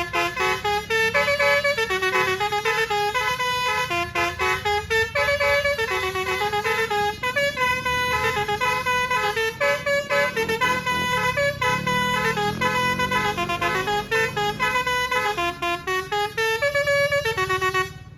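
Basuri telolet bus horn playing a tune: a quick run of distinct horn notes stepping up and down, one after another, with a low rumble underneath. The horn stops suddenly near the end.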